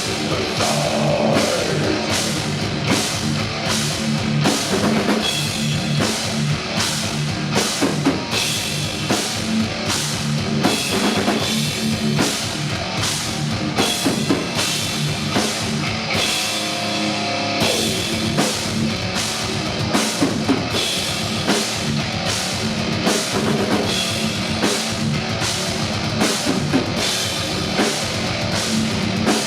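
Heavy metal band playing live: distorted electric guitars, bass and a drum kit hammering out a fast, steady beat. About halfway through, the low end drops out for about a second, then the full band comes back in.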